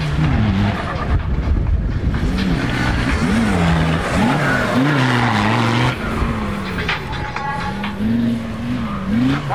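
Off-road race car engine revving hard, its pitch repeatedly climbing and dropping back with throttle and gear changes. Tyre and dirt noise runs underneath.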